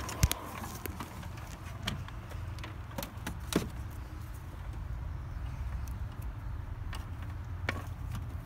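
Handling noise from a moving handheld phone: rubbing, with a few sharp clicks and knocks, the loudest just after the start and another about three and a half seconds in, over a steady low rumble.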